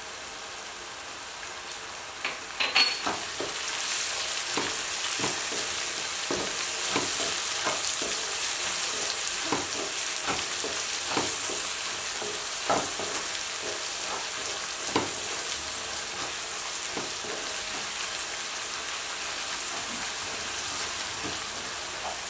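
Brinjal slices and spices sizzling in oil in a nonstick kadai. A wooden spatula stirs them, knocking and scraping irregularly against the pan. The sizzle grows louder about three to four seconds in as the stirring gets going.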